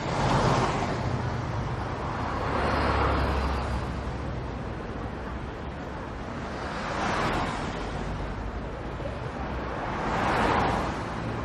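Street traffic: about four cars passing one after another, each a swell of tyre and engine noise that rises and fades, over a steady low rumble.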